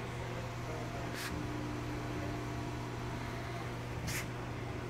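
Steady low background hum, with two brief soft swishes, one about a second in and one about four seconds in.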